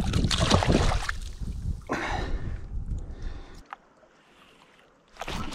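A cutthroat trout splashing into shallow lake water as it is let go from the hand. A second, shorter burst of splashing follows about two seconds in.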